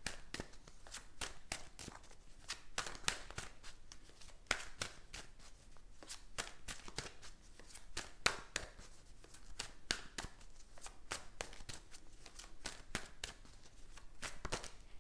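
A tarot deck being shuffled by hand, hand to hand: a steady run of soft, irregular card clicks and slaps, several a second.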